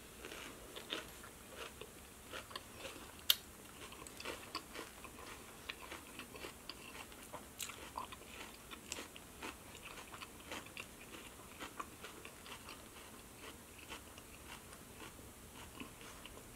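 A person chewing food close to the microphone: soft, irregular wet mouth clicks with an occasional crunch, and one sharper click about three seconds in.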